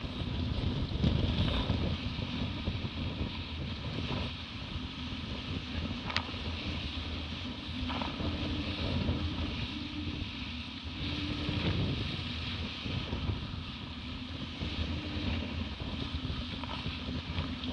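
Wind buffeting the microphone and water rushing and splashing past the hulls of a Hobie 16 catamaran sailing at speed, a steady uneven rumble and hiss. A brief click about six seconds in.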